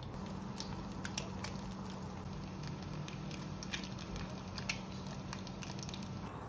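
An egg frying in oil in a small nonstick pan, sizzling with scattered pops and spits of oil. A low steady hum sits underneath and stops near the end.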